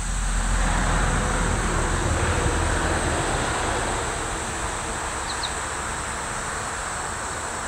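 Steady rumbling noise of a passing vehicle, swelling in the first second and fading slowly over the next few seconds, with a steady high hiss above it.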